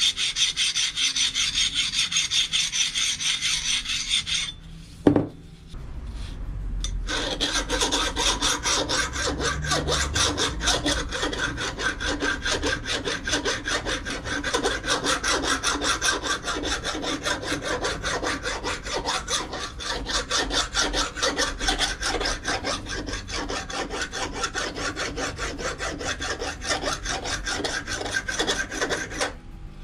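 A flat abrasive stone rubbed back and forth by hand on a steel bearing ring from a mill spindle, to take off high spots and a burr. Fast rubbing strokes, then a short pause with a single knock about five seconds in, then a long run of quick, even strokes that stops just before the end.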